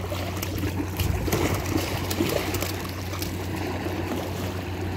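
Water lapping and trickling at the river's edge, with a few light clicks and rustles on top.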